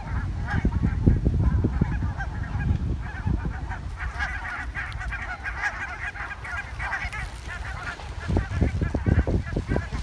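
A flock of Canada geese honking, many calls overlapping, thickest through the middle. Wind buffets the microphone in low gusts that grow stronger near the end.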